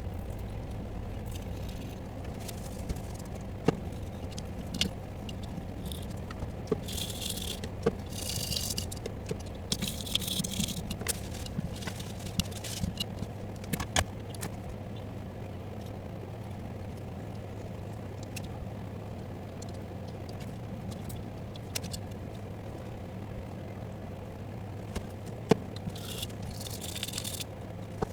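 Scattered clicks and scrapes of hand tools on a circuit board during capacitor replacement on a bass amplifier, with a few short hissing bursts over a steady low hum.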